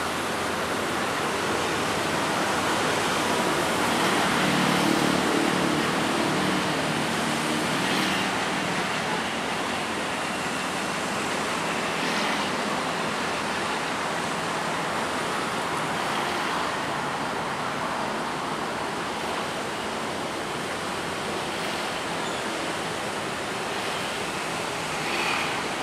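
Steady rushing noise of an electric commuter train and its surroundings near the track. It swells for a few seconds about four seconds in, with a low motor hum as the train draws closer.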